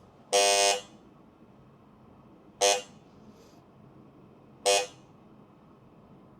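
Electronic beeps from a DiFluid Omni coffee particle analyser: one longer, buzzy beep about half a second in, then two short beeps about two seconds apart.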